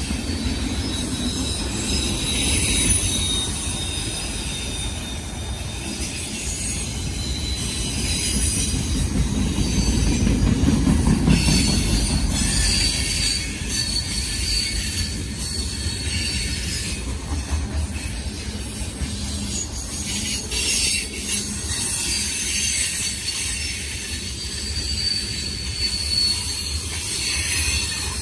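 Freight cars of a mixed manifest train rolling past: a steady low rumble of steel wheels on rail, with thin high-pitched wheel squeal from the curve and scattered clicks as the wheels pass over rail joints.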